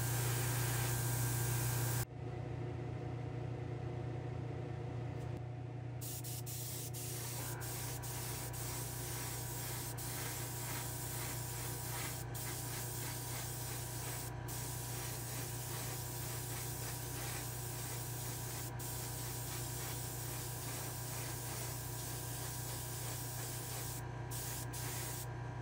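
Airbrush spraying paint and clear coat in a hobby spray booth: a steady hiss over a low hum. The sound drops abruptly about two seconds in, and the hiss breaks off briefly a few times.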